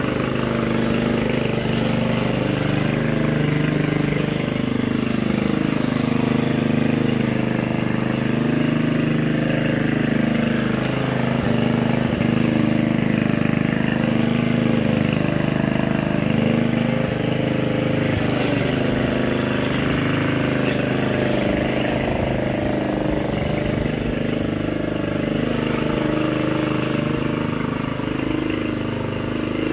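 Walk-behind petrol rotary lawn mower running while cutting grass, its engine note wavering slightly up and down as the load on the blade changes.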